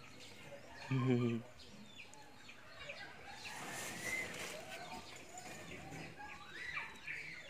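Faint clucking of chickens and other scattered bird calls, with one short, louder low-pitched call about a second in.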